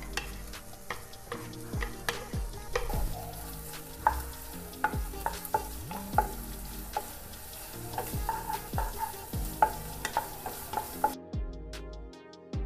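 Sliced onions sizzling in oil in a non-stick pan while a spatula stirs them, scraping and knocking against the pan about twice a second. The sizzle cuts off about eleven seconds in.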